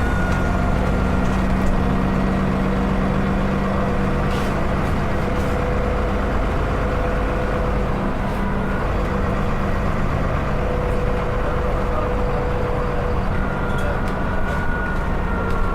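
Dennis Enviro 400 double-decker bus engine running steadily, with the turbocharger's whistle as thin steady tones above the engine drone. The tones shift slightly in pitch near the end.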